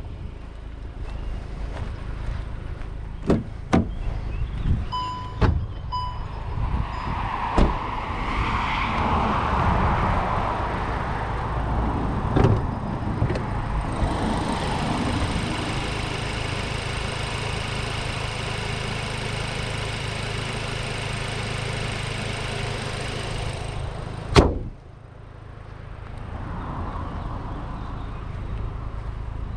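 A 2021 Volkswagen Golf GTI Mk8's turbocharged 2.0 TSI engine running steadily under way, heard from the cabin with road noise. There are several sharp knocks in the first half and two short beeps about five seconds in. A steady hiss sets in about halfway and ends with a loud click, after which the sound drops and builds back up.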